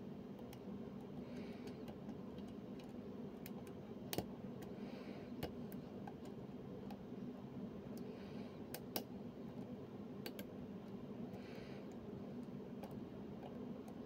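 Small, irregular metallic clicks of a lock pick working the pins of a Yardeni six-pin euro cylinder lock held under tension, two of them sharper than the rest, over a steady low hum.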